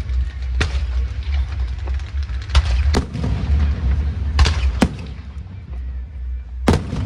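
Fireworks shells bursting: about six sharp bangs at irregular intervals, over a steady low rumble.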